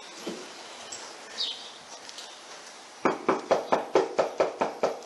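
Rapid, hard knocking on an apartment door, about five blows a second, starting about three seconds in after a few faint bird chirps.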